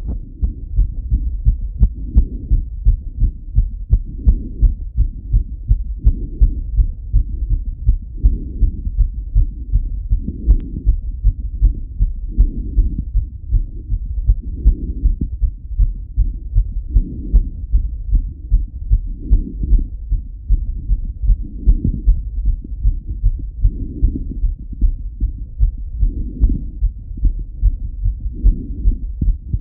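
Fast male heartbeat heard through a Littmann stethoscope, racing after a run: quick, even pairs of low thuds. Under it, a low rushing sound swells and fades about every two seconds.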